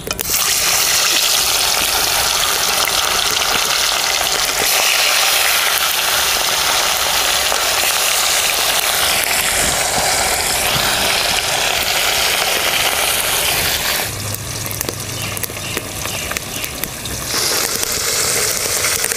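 Pangas fish steaks frying in hot mustard oil in a kadai: a loud, dense, steady sizzle that starts sharply as the fish goes into the oil and thins for a few seconds near the end.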